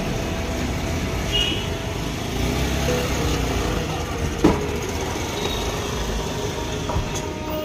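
Street traffic noise, with vehicle engines running. A single sharp knock sounds about halfway through.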